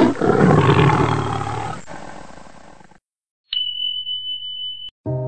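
Big-cat roar sound effect, fading away over about three seconds. After a short silence comes a steady high-pitched beep lasting about a second and a half, and music with held notes starts near the end.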